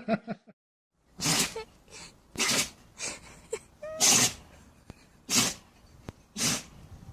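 A dog sneezing over and over, about six short sharp sneezes roughly a second apart.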